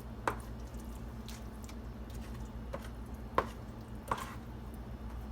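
A big spoon knocking and scraping against a bowl as thick, creamy buffalo chicken dip is scooped out: about five separate soft clicks and squelchy scrapes, over a low steady hum.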